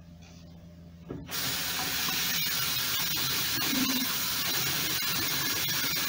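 A tap is turned on about a second in and water runs steadily into the sink with a loud, even hiss.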